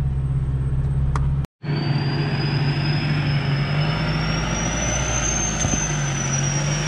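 Four-wheel-drive vehicle engine running steadily at low revs, with a thin high whine above it that slowly rises. The sound drops out for a moment about one and a half seconds in, then carries on.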